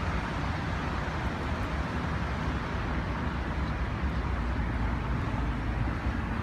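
Steady outdoor traffic noise with a continuous low rumble, which sounds like wind buffeting a phone microphone.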